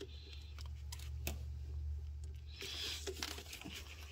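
Small plastic clicks and a brief scrape as fingers work a wire terminal into the back of a plastic engine-computer (PCM) wiring connector, with one sharper click about a second in, over a low steady hum.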